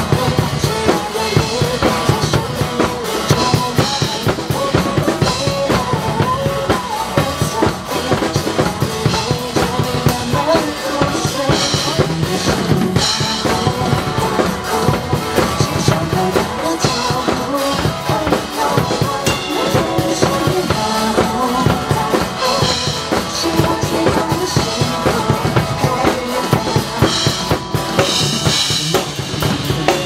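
Two drum kits played together in a drum cover, kick, snare and cymbals hit continuously without a break, over a pop backing track played through PA speakers.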